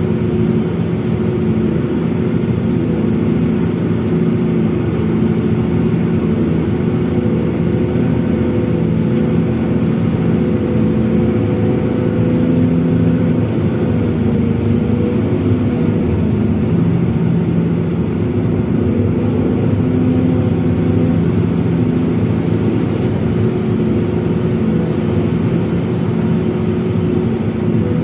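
Diesel engine of an SDLG long-reach excavator running steadily under work, a constant drone with little change in pitch.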